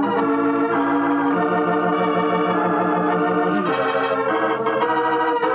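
Organ music: sustained chords that change every second or so, a musical bridge marking a scene change in an old radio drama.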